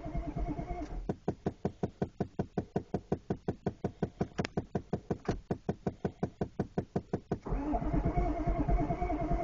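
Chevrolet 6.5 L turbo-diesel V8 being cranked on a cold start without catching. A steady starter whine is heard at first, then an even run of sharp knocks about six a second, and the louder whine returns about three-quarters of the way in.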